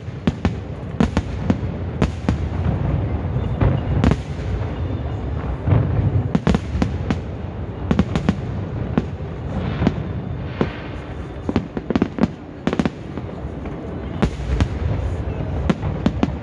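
Aerial fireworks bursting in quick succession: many sharp bangs, one after another, over a continuous low din of distant booms.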